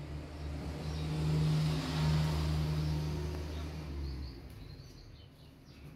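A motor vehicle driving past: a low engine hum under a rush of noise that swells to its loudest about two seconds in, then fades away.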